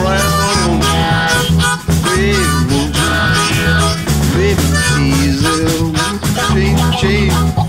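Blues harmonica played with bent, wavering notes over a strummed acoustic guitar.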